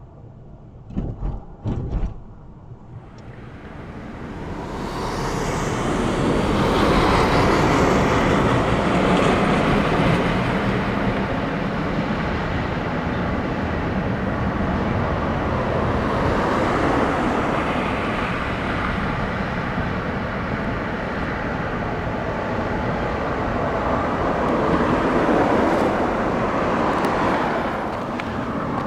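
Road vehicle noise: a few short knocks, then the steady sound of cars on the road builds over a few seconds and holds loud.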